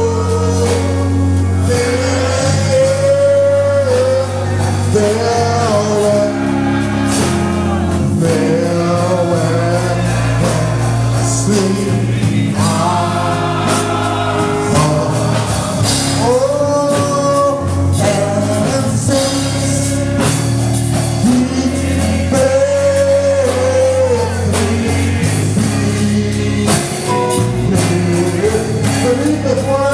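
Gospel praise-and-worship music: a congregation and praise team singing together over instrumental backing with a steady bass line.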